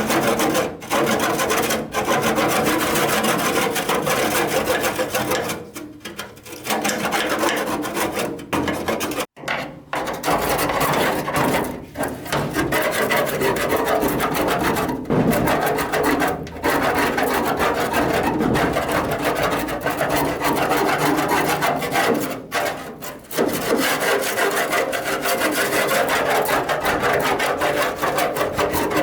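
Continuous rasping and scraping from work on the blower's parts, broken by several short pauses.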